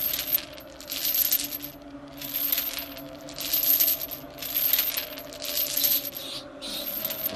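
Metal chains or shackles jingling in about seven even strokes, roughly one a second, as with a chained prisoner's steps. A faint steady drone runs underneath.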